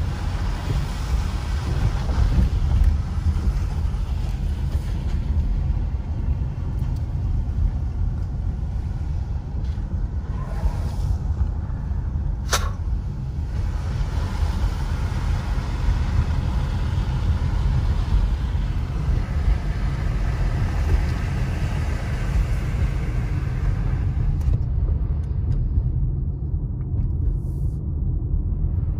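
Steady low rumble of a car driving slowly on wet pavement, heard from inside the cabin: engine and tyre noise. One sharp click about halfway through.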